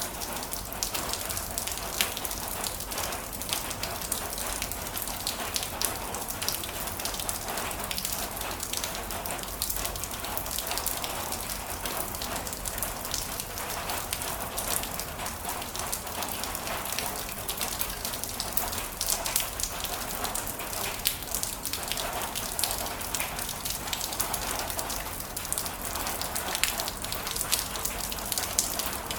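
Heavy rain falling steadily, with many sharp drop impacts ticking through a dense, even hiss.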